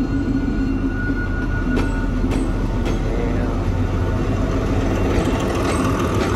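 D20E diesel locomotive passing close at low speed while hauling a freight train: a steady low engine rumble, with a thin steady whine in the first couple of seconds and a few sharp clicks from the wheels on the track.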